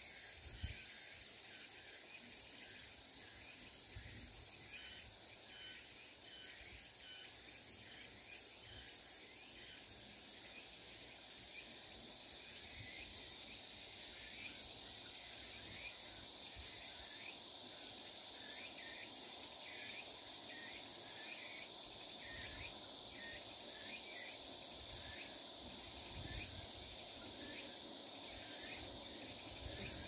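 Late-summer insect chorus: a steady high-pitched buzz that swells louder about ten seconds in, over short chirps repeating about once a second. A few low wind buffets on the microphone.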